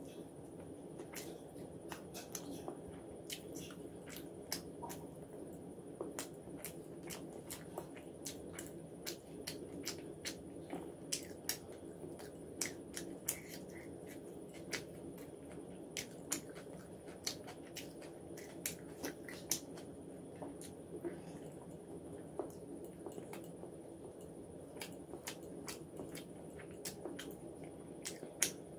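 Close-miked chewing and mouth sounds of a person eating fried rice and chicken by hand: irregular wet clicks and smacks, several a second, over a steady low hum.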